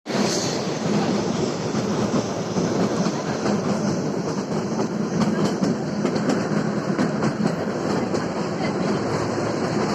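Kalka–Shimla narrow-gauge toy train running, a steady rumble with the wheels clicking over the rail joints.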